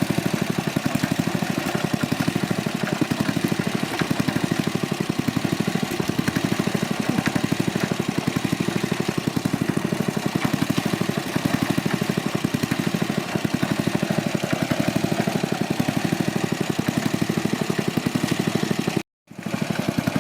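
Small engine running steadily with an even, rapid beat. There is a brief silent break about a second before the end.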